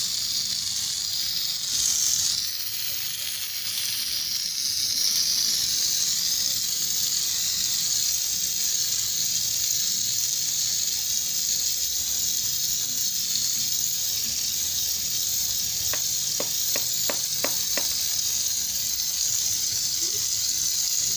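Steady hiss of compressed air jetting from a homemade PVC-pipe paint spray gun fed by a refrigerator-compressor air compressor, with a faint low hum underneath. Past the middle, a quick run of about six ticks.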